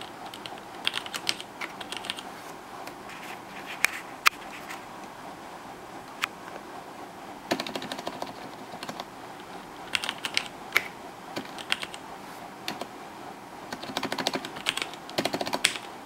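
Typing on a KBC Poker mechanical keyboard with red (linear) switches, keys clacking in short irregular bursts with pauses between them.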